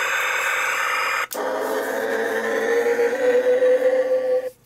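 Electronic sound effects from a Playmates Star Trek Enterprise toy, played through its small built-in speaker. One noisy effect stops about a second in and another starts, with a slowly rising tone, then cuts off suddenly near the end.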